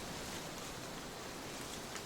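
Trade wind blowing steadily, an even rush of noise with a few faint rustles near the end.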